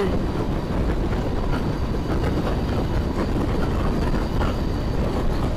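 Triumph Tiger 800 motorcycle riding at road speed: a steady low rumble of engine, tyres and wind on the microphone.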